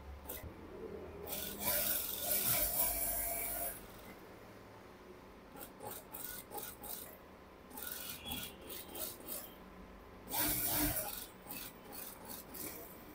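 Sewing at an industrial lockstitch machine: two loud rasping runs of stitching, the first about two seconds long, the second about a second near the end, with short scratchy strokes between them as the collar fabric is slid and pressed along the machine bed.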